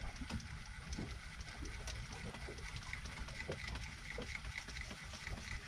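Low steady rumble of a fishing boat at sea, with scattered faint clicks and a faint run of short, high chirps repeating through the middle.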